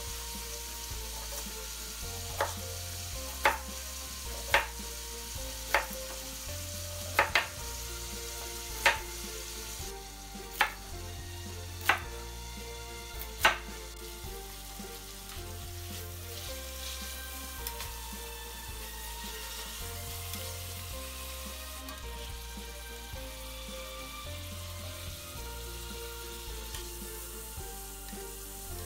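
A knife chopping carrot on a wooden cutting board: about ten sharp knocks at an uneven pace over the first half. Then beef chunks browning in hot oil in a metal pot, with a steady sizzle.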